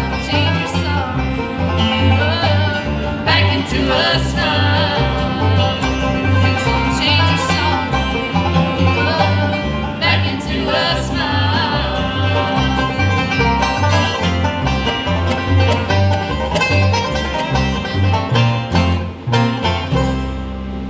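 Live bluegrass band playing: a woman's lead vocal over mandolin, acoustic guitar, banjo and upright bass, with the bass walking steadily underneath. Near the end the band closes on a sustained chord.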